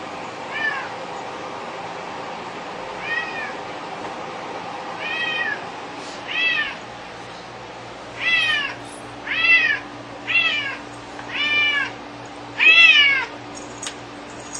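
Domestic cat meowing about nine times, each meow rising and then falling in pitch. The meows start sparse and come louder and closer together, the loudest near the end.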